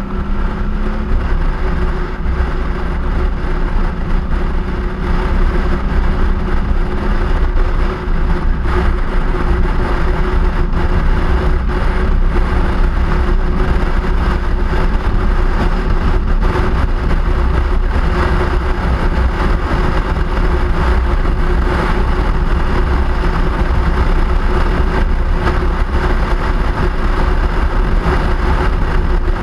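Steady rumble of wind and road noise from a moving vehicle, heavy in the low end, with a faint steady hum.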